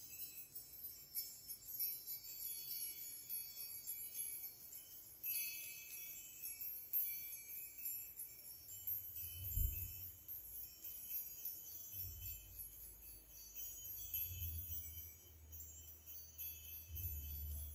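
Soft high tinkling of chimes, many light ringing notes overlapping, with a faint low hum that comes and goes in the second half.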